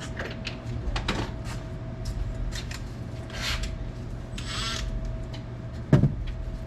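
Scattered metallic clicks and scrapes of hand tools working on an exhaust U-bolt clamp, over a steady low hum, with a louder knock about six seconds in.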